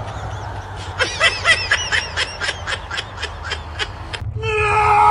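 A bird calling in a rapid series of short calls, about three to four a second. Near the end a steady tone with several pitches comes in.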